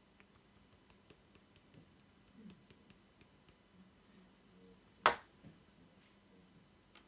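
Small clicks and scrapes of a metal teaspoon in a plastic spice jar as dried oregano is scooped out, with one sharp click about five seconds in.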